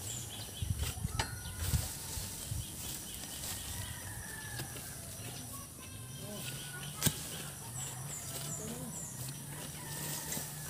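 Chickens clucking, with a rooster crowing faintly. A few knocks come in the first two seconds, and one sharp click about seven seconds in.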